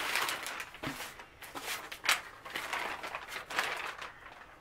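Plastic mailer bag crinkling and rustling as it is opened and handled. The rustling is dense for about the first second, then comes in separate short crackles.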